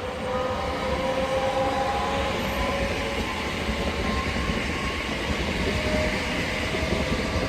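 Class 365 electric multiple unit pulling away from the platform: a steady rumble of wheels on rail with a whine of several tones from the traction equipment that wavers slightly in pitch.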